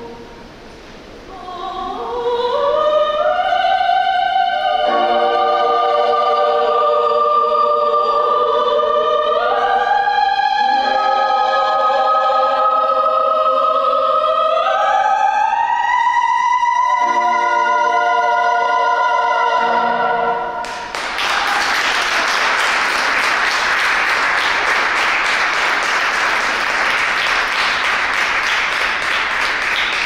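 Female operatic voices singing long held notes that climb step by step in rising phrases up to a high final note. Audience applause breaks out about two-thirds of the way through and carries on.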